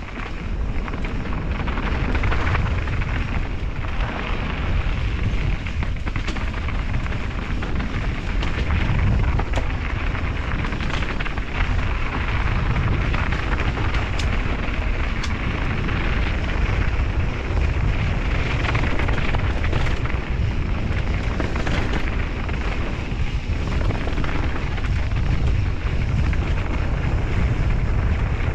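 Wind buffeting a GoPro action camera's microphone as a mountain bike descends a dirt singletrack, with a steady low rumble from the tyres on the trail. Scattered sharp clicks and rattles from the bike over rough ground.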